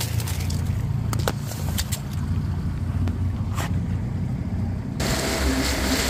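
Small boat's outboard motor running slowly with a low, steady drone, a few brief clicks over it. About five seconds in the sound changes abruptly to the motor running faster, with rushing water and wind.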